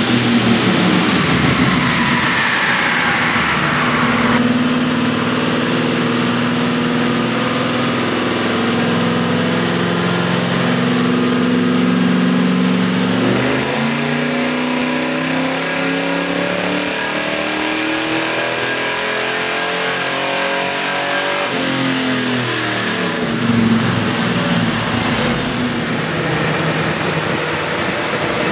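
Car engines run on a chassis dynamometer: the first falls in pitch as it coasts down off the rollers, then a long full-throttle dyno pull rises steadily in pitch for several seconds before dropping back. The first engine is a 350 cubic-inch V8.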